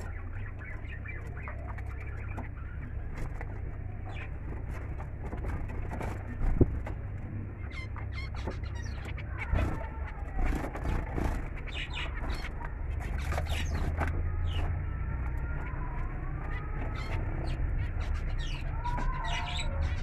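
Zebra finches chirping and calling in short, scattered notes over a steady low hum.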